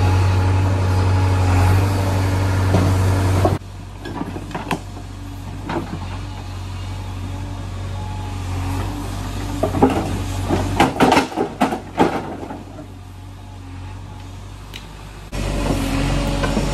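Heavy diesel machinery engine running steadily, which cuts off abruptly a few seconds in. A quieter stretch follows with a cluster of sharp clanks and knocks about two-thirds of the way through, and then the engine sound returns suddenly near the end.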